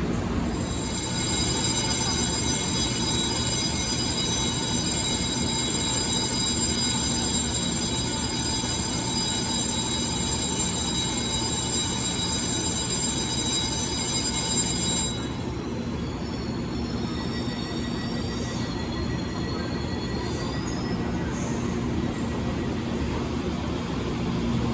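Electric train in the station giving a high-pitched, steady multi-tone whine for about fourteen seconds that cuts off suddenly. Fainter wavering squeals of steel wheels on rail follow, over a low rumble.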